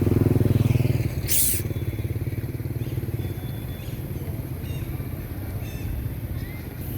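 A motor vehicle engine running, loudest in the first second and then easing off, with a brief sharp hiss about a second and a half in.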